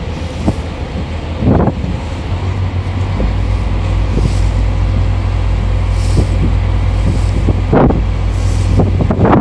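Strong wind buffeting a phone's microphone in gusts, over a steady low rumble that grows heavier about three seconds in.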